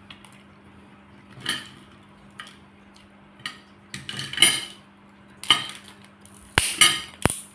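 Steamed crab shell being cracked and picked apart by hand over a ceramic bowl, with shell and metal utensils clicking and clinking against the dish in irregular snaps, the sharpest ones near the end.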